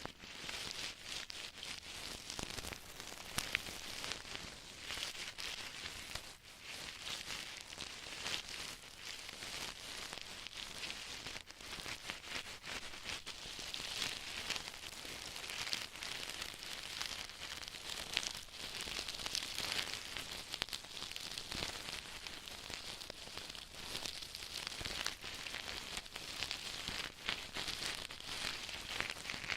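Close-miked ear-cleaning ASMR: a tool scratching and rustling in an ear, heard as dense crackling full of tiny clicks that swells and eases every few seconds.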